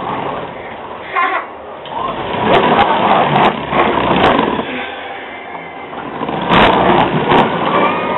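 Plastic wheels of a toddler's ride-on Tonka truck rolling and rattling across a hard kitchen floor, getting louder as it comes close, with a young child's excited shrieks.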